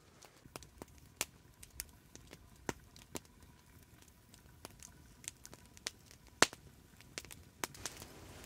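Wood campfire crackling, with sharp pops coming at irregular intervals, the loudest about six and a half seconds in.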